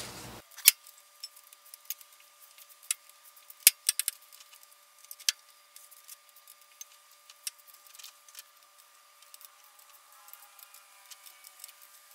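Ratchet wrench clicking and small metal tool clinks, irregular sharp ticks, as camshaft bearing cap bolts are tightened down a little at a time. The sharpest clicks come about half a second in and near four seconds in.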